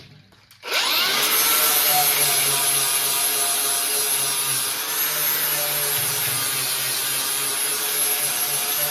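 A handheld power grinder starts about a second in, spinning up with a rising whine, then runs steadily against metal, cleaning up the edges of a scrap-steel hitch tongue.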